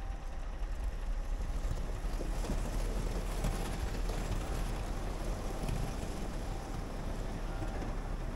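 Scania R520 timber truck's V8 diesel engine running as the truck reverses slowly with its empty log trailer, a steady low rumble.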